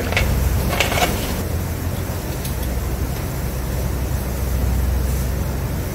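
A steady low machine hum with a hiss over it, and a couple of light clicks in the first second as spray gun parts are handled on the bench.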